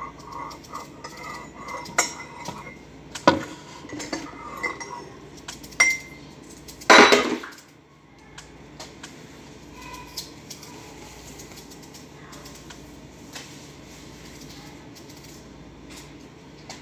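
Dishes and utensils clinking and knocking as they are handled, with one louder clatter about seven seconds in, then only faint occasional clinks.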